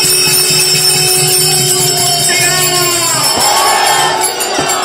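Devotional procession music: a two-headed hand drum and jingling small hand cymbals keeping a steady beat under a held tone, with a crowd's voices shouting over it about halfway through.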